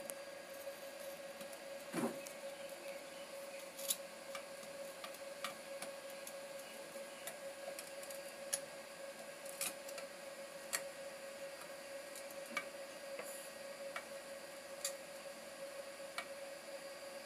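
Soldering iron and fingers working on a circuit board: scattered light clicks and taps, about one every second or two, over a steady faint hum.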